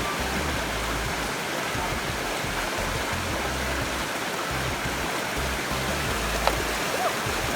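Waterfall rushing: a steady, even noise of falling water, with one sharp tick about six and a half seconds in.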